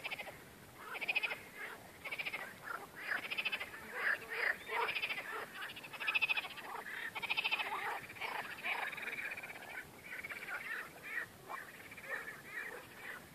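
A chorus of many frogs calling from shallow marsh water, with overlapping rapid rattling croaks coming in waves.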